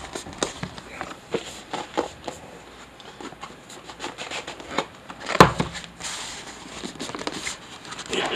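Cardboard product box being handled and worked open: scattered light scrapes, taps and rubbing of hands on card, with one louder knock about five seconds in. The box is a tight fit.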